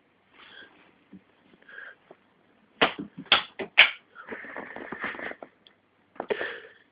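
A cat rummaging in a bag: bursts of rustling, with three sharp knocks close together about three seconds in.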